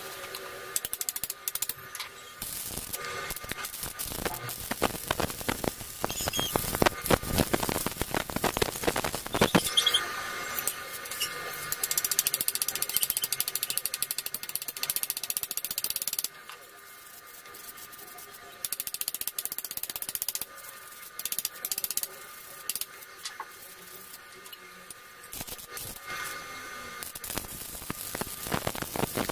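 Rapid ratcheting clicks in runs, thickest in the first ten seconds, sparser through the middle and picking up again near the end.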